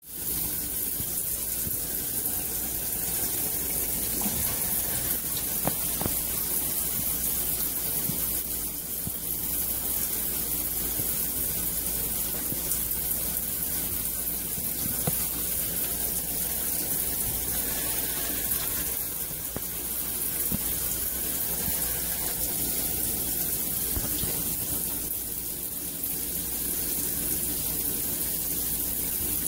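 Shower running: a steady hiss of spraying water, unbroken throughout.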